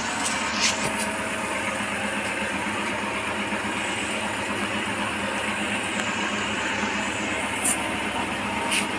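A steady engine hum, like a vehicle idling, runs throughout. A few short clicks and taps come near the start and again near the end as the inflator's hose chuck is fitted onto a motorcycle tyre valve.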